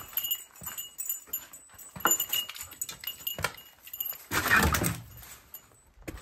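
Footsteps and scuffs of a person and a dog walking out through a garage door onto grass, with light knocks and clatter. About four and a half seconds in comes a louder rustling scrape lasting under a second.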